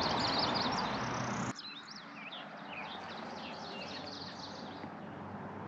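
Small birds chirping and singing in quick, repeated short calls. For the first second and a half they sit over a steady rush of flowing water, which cuts off abruptly and leaves the birdsong over a quieter background.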